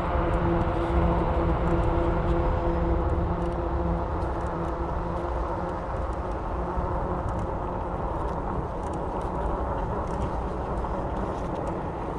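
Electric bike motor running with a steady whine while riding, over a low rumble of wind on the microphone and tyre noise; the whine fades about halfway through.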